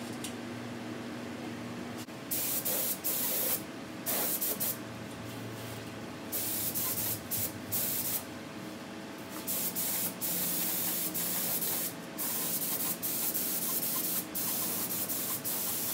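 Gravity-feed air spray gun spraying paint, a loud hiss that starts about two seconds in and cuts on and off again and again as the trigger is pulled and released.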